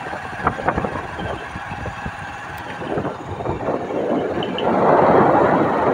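Motorcycle riding along a rough road, heard from the rider's phone: running noise with many small knocks and rattles, swelling into a louder, even rushing noise from about four seconds in.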